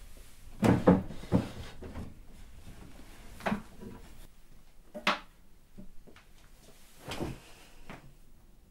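Drawers of a chest of drawers being pulled open and pushed shut: a run of knocks and bumps, loudest about a second in, with further ones at about three and a half, five and seven seconds.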